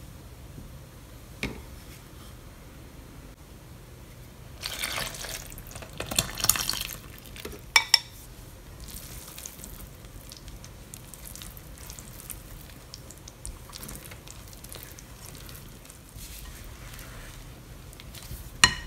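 A silicone spatula stirs a milk-and-yeast mixture in a glass bowl, then scrapes and stirs it through flour in a large glass bowl as a shaggy dough forms. There is a louder rustling stretch a few seconds in, sharp clicks near the middle, and another just before the end.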